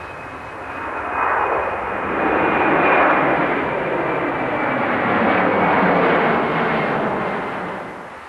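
Boeing 767 twin-engine jet airliner climbing out just after takeoff: a loud jet rush that swells about a second in, stays strong, then fades near the end, with a thin high steady whine from the engines on top.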